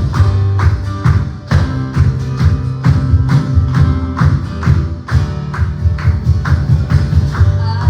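Live worship band playing an instrumental passage: a steady drum beat, bass and guitar, with no singing.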